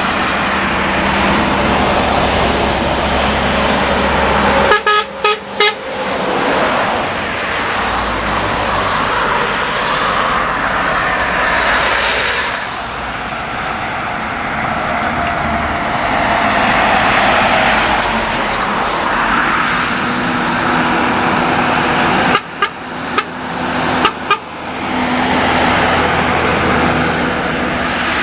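Heavy diesel lorries and cars passing close by on a highway, the traffic noise swelling and fading as vehicles go by, with a vehicle horn sounding.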